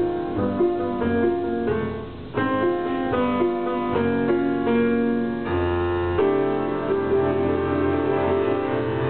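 Grand piano and upright double bass playing together as a duo: piano chords changing every half second or so over a low bass line, settling into longer held chords about five and a half seconds in.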